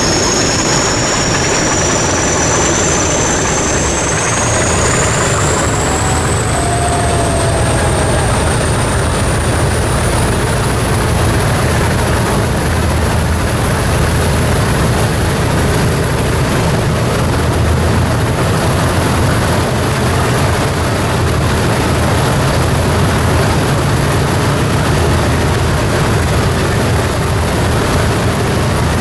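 Diesel locomotive running under power with a steady heavy rumble. A high whine rises in pitch over the first several seconds and then holds steady.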